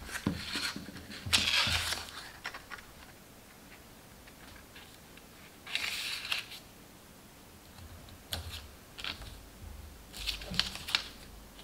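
Stiff cardstock being handled and pressed together on a cutting mat: short rustles, scrapes and light taps of the paper, coming in a few separate bursts.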